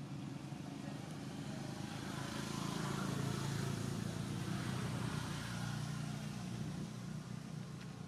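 A motor vehicle passing by, its engine and road noise rising to a peak about three seconds in and fading away over the next few seconds.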